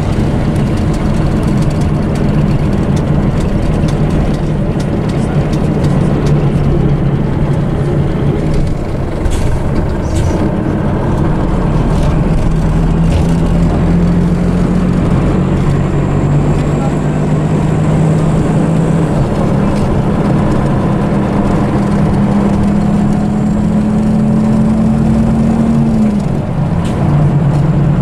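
Scania diesel engine of an Ikarus EAG E94 bus, heard from inside the passenger cabin as the bus drives along. Its pitch climbs slowly for about ten seconds in the second half, then drops suddenly near the end.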